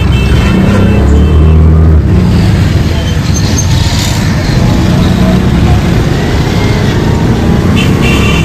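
Loud auto-rickshaw ride: the engine running with road and traffic noise. A horn sounds in the first second or so and again near the end.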